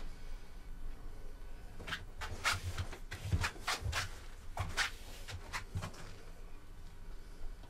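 Hands handling a freshly applied false beard and moustache: about a dozen short, soft clicks and rustles at an irregular pace, starting about two seconds in and stopping about two seconds before the end.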